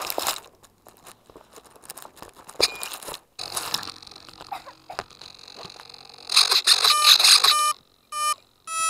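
Fingers and grass scraping and rustling against a small camera mounted on a foam RC flying wing. From about six seconds in, short electronic beeps at a few steady pitches, the startup tones of the wing's electric speed controller.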